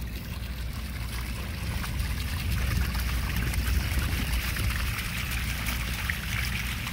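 Rainwater trickling and pouring steadily, a little louder in the middle, over a constant low rumble.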